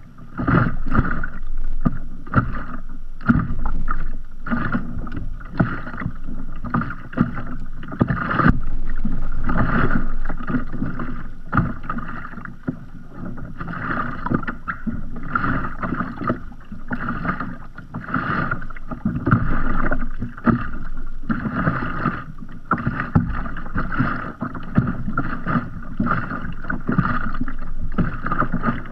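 Small sea waves lapping against the hull of a kayak floating at rest, an irregular run of short splashes, a few a second.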